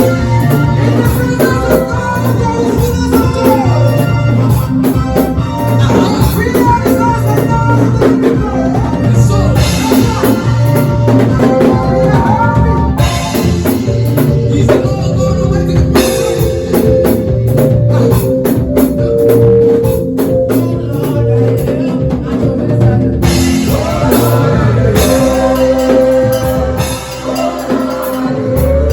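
A live band rehearsing a gospel praise song: drum kit keeping a steady beat under the band, with singing.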